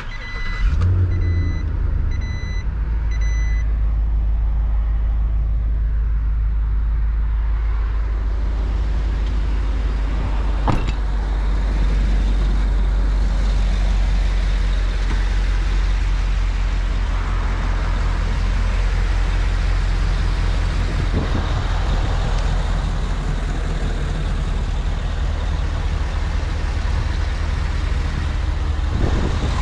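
2019 Chevrolet W4500's 6.0-litre gasoline V8 starting about half a second in, then idling steadily with a deep, even hum. A dashboard warning chime beeps repeatedly for the first few seconds, and there is a single sharp click near the middle.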